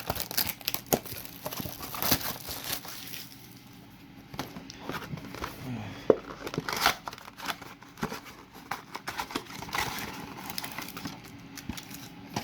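Yu-Gi-Oh trading card packaging being torn open and crinkled by hand, with irregular sharp crackles and rustles as the wrapper is pulled apart and the cards are handled.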